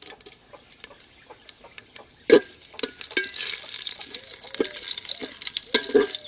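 Whole spices and halved dried red chillies sizzling and crackling in hot mustard oil in an aluminium pot, with stirring. A single sharp knock comes about two seconds in, and the sizzle grows much louder from about three seconds in.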